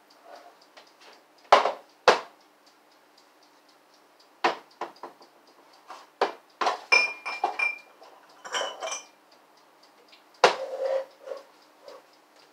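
Kitchenware clattering: an irregular series of knocks and clinks of dishes, pots and utensils, several ringing briefly, the loudest about a second and a half in and again near the end. A clock ticks faintly underneath.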